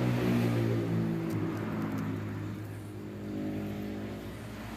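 A motor vehicle's engine running, its pitch wavering slightly; loudest in the first second, easing off, then picking up again about three seconds in.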